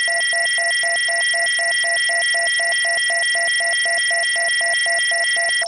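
Electronic scanner sound effect: steady high synthetic tones over a low beep pulsing about four or five times a second, cutting off suddenly at the end.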